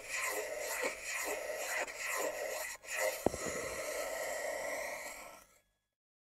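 Free-improvised electroacoustic music: a rough, scratchy noise texture with a sharp click and a quick falling tone a little past three seconds in, then an abrupt cut to total silence about five and a half seconds in, the end of the track.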